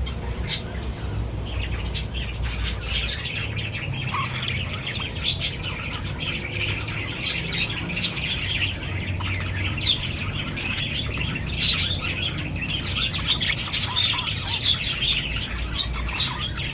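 A group of birds chattering and chirping continuously, with sharp squawks here and there, over a low rumble; the chatter thickens about a second and a half in.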